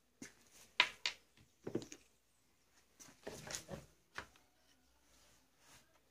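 Handling sounds of an old metal garrucha pistol and its cartridges being picked up and moved about: a series of sharp clicks and knocks, with a short scraping rustle about halfway through.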